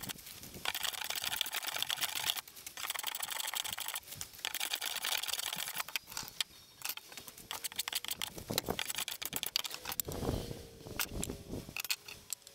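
Hand bench plane shaving wood in three long rasping strokes over the first six seconds. It is then set down, followed by scattered clicks and a few knocks as wooden pieces are handled on the bench.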